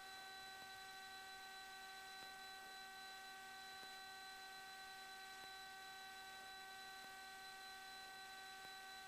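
Near silence on the cockpit intercom audio feed: a faint steady electrical hum with several high, unchanging tones.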